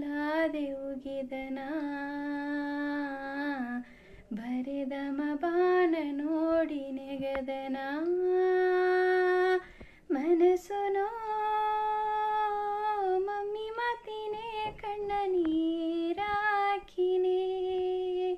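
A woman singing a Baduga song unaccompanied, in long held notes with slow, ornamented bends in pitch. She breaks briefly for breath about four and ten seconds in.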